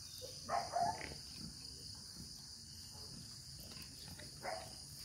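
Steady high-pitched chorus of insects, with two short pig grunts about half a second in and another near the end.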